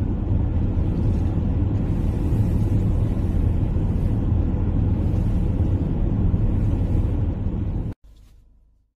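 Road noise inside a moving car on a highway: a steady low rumble of tyres and engine, which cuts off abruptly about eight seconds in.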